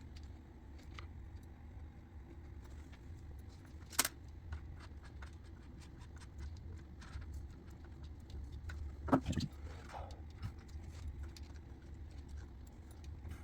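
Light clicks and rattles of a trigger cable being pushed through the ribbed cable sheath in a scrubber's handle. There is a sharp click about four seconds in and a louder knock about nine seconds in, over a low steady hum.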